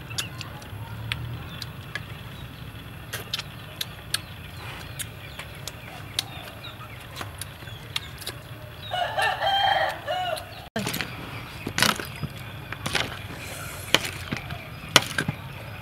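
A rooster crows once, a pitched call of about a second and a half beginning about nine seconds in, over a low steady background scattered with small sharp clicks.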